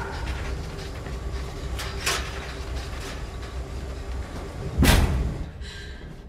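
A low steady rumble with a sharp knock about two seconds in. Then, near the end, one loud bang as a metal locker door is pulled shut.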